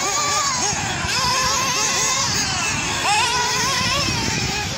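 Several nitro RC cars' small glow-fuel engines running laps together, their high-pitched buzz rising and falling as they accelerate and back off around the track.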